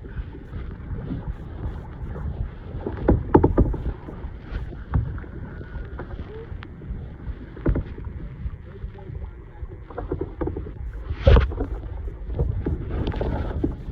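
Kayak paddle strokes splashing in seawater, with sharp knocks at uneven intervals of one to three seconds, the loudest about three seconds in and again near eleven seconds. Wind rumbles on the microphone throughout.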